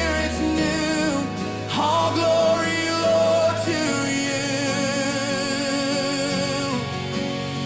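Contemporary worship song: long sung notes with a wavering vibrato, over sustained keyboard and bass.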